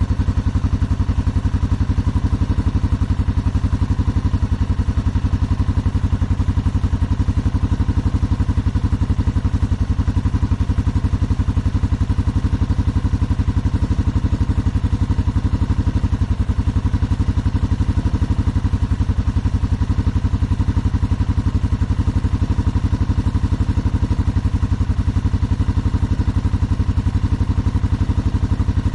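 Suzuki Quadrunner 500 4x4's single-cylinder four-stroke engine idling steadily with an even beat, running again after a no-start repair.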